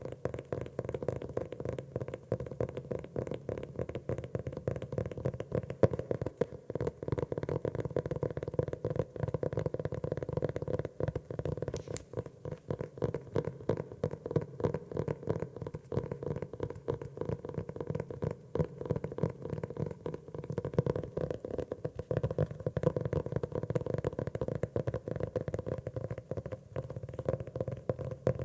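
Rapid, continuous tapping on a notebook, a dense patter of many taps a second.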